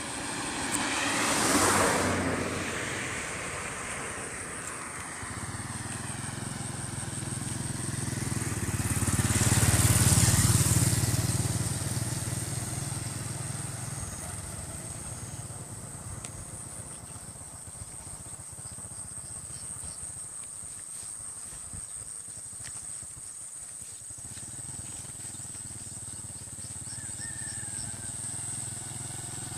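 Traffic passing on a road: a vehicle goes by about two seconds in and a louder one about ten seconds in, with engine hum rising and fading around each pass. Near the end a small underbone motorcycle's engine is heard approaching.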